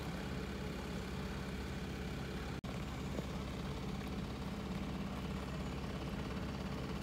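Small sailboat's motor running steadily at low revs, a constant even hum. The sound drops out for an instant about two and a half seconds in.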